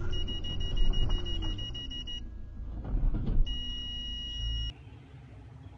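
High-pitched electronic warning beeps in a car just after a collision: a fast run of short beeps, about seven a second, for about two seconds, then one steady beep for just over a second, over the low rumble of the car. Then everything cuts off.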